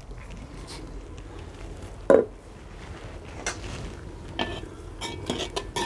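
Metal cookware clanking: one loud ringing clank about two seconds in, then a steel ladle clinking and knocking in a large metal pot of simmering dal as it is stirred.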